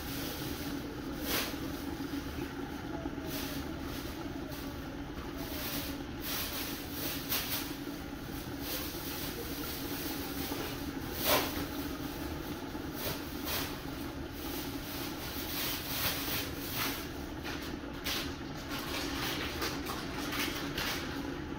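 Curry chicken simmering in a covered pan on medium heat: irregular pops and ticks of bubbling under the glass lid over a steady low hum, with one louder pop about halfway through.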